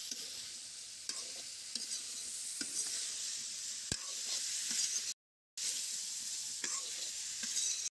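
Pork pieces frying in oil in a kadai, a steady sizzle, with a spatula scraping and clicking against the pan as they are stirred; the pork is being fried with only salt and turmeric to render out its fat. The sound drops out briefly about five seconds in.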